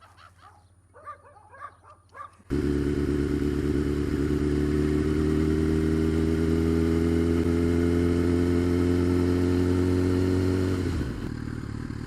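A 2015 Suzuki GSX-R1000's inline-four engine cuts in suddenly about two and a half seconds in and pulls steadily in gear, its pitch slowly rising. About a second before the end it drops to a lower, quieter running sound as the throttle is rolled off.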